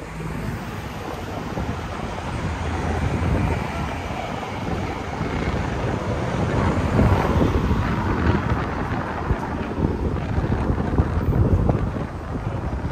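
City street traffic passing, with wind buffeting the microphone in an uneven low rumble.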